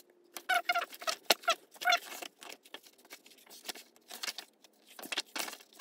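Pages of a hardcover book being turned and smoothed by hand: a quick run of short paper rustles and flicks, with a few brief squeaks of skin sliding on the paper.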